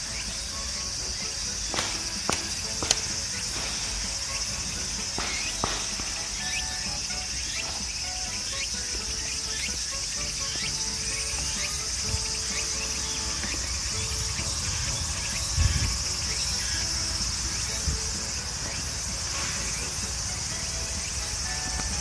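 Steady high-pitched chorus of insects. A few sharp snaps of twigs and leaves sound about two and five seconds in as a heavy fallen branch is shifted.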